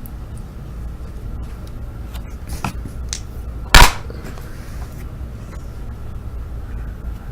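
A single sharp, loud knock about four seconds in, with a couple of faint clicks before it, over a steady low hum.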